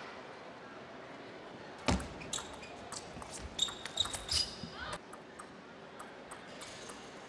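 Table tennis rally: a thump about two seconds in, then the ball clicking sharply off bats and table several times over about three seconds, with a few short high squeaks among the hits, until the point ends about five seconds in.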